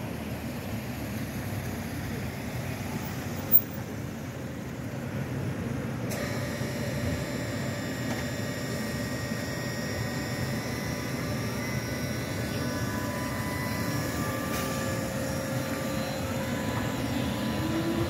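City street traffic with cars running and a ZET electric tram, whose traction motors add a layered electric whine from about a third of the way in, with one tone rising in pitch near the end as the tram moves off. A single sharp click sounds about three and a half seconds in.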